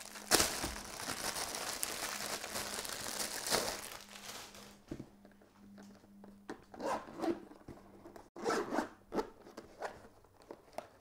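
Plastic wrap rustling as it is pulled off a zippered action-camera carrying case, then the case's zipper being drawn open in several short pulls.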